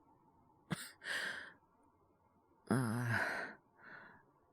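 A man with a cold sighing and breathing: a short sharp catch of breath, a breathy inhale, then a long voiced sigh and a faint breath out.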